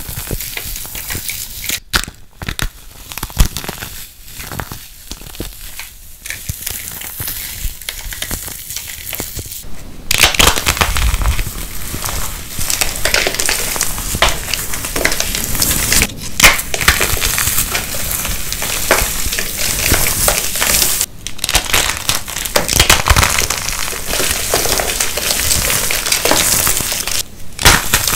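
Dry, glitter-coated soap crunching and crumbling as it is crushed between the hands. For the first several seconds it is a lighter crackle. From about ten seconds in the crunching is louder and denser, with a few brief breaks.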